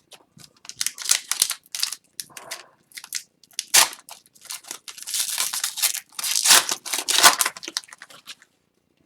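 Packs of Upper Deck hockey cards being handled and opened, with a string of short crinkles and rustles of wrappers and cards and a longer run of dense crinkling about five to seven and a half seconds in.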